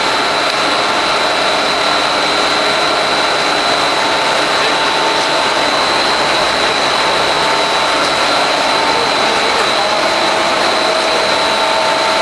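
PVC foam board production line machinery running: a steady, loud mechanical noise with a constant high whine and a few fainter steady tones beneath it.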